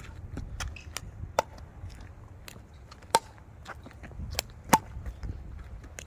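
Solid wooden pickleball paddles striking a plastic pickleball in a back-and-forth rally: sharp hollow pops every second or two, the strongest three with a short ring, with lighter clicks between them.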